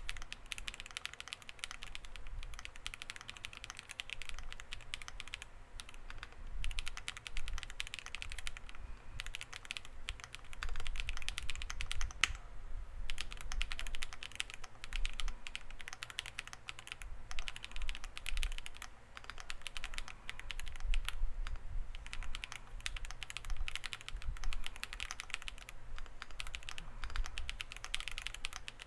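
Typing on a WEIKAV Record mechanical keyboard: CNC aluminium case, polycarbonate plate, leaf-spring mount, factory-lubed Akko Cream Black Pro linear switches and Akko Cream PBT keycaps. A steady stream of quick keystrokes with a couple of brief pauses.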